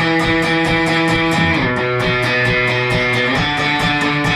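Band music led by an electric guitar, held chords over a steady rhythmic pulse; the chord changes about a second and a half in and again near the end.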